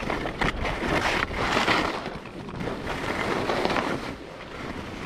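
Skis sliding and scraping over snow through turns, swelling louder twice, with wind rushing over the microphone.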